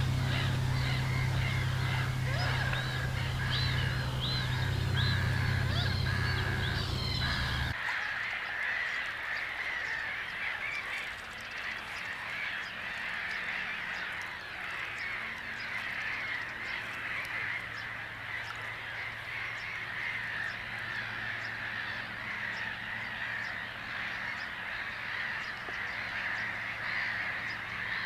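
Outdoor ambience with birds calling. A steady low hum under the calls cuts off abruptly about eight seconds in. After that come scattered bird calls over a steady high-pitched background.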